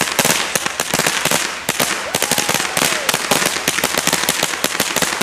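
Firecrackers going off on pavement: a rapid, irregular crackle of dozens of sharp bangs, fairly even in loudness throughout.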